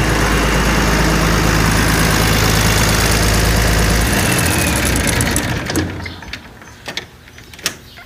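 Tractor engine running steadily, then shut off about four seconds in and dying away over a second or so. A few sharp clicks and knocks follow near the end.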